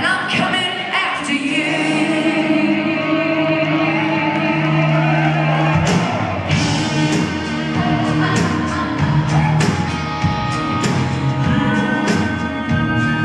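Live country-rock band playing: a woman singing lead with held, wavering notes over electric guitar and drums, drum hits cutting through at a steady beat.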